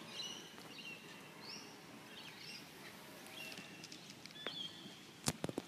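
Birds chirping, short high calls every half second or so over a quiet outdoor background, with a few sharp clicks near the end.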